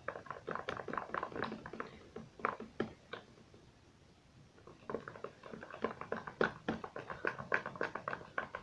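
Homemade soap-and-salt slime being stirred and squished by hand: quick, irregular wet clicks and squelches in two spells, with a short lull in the middle.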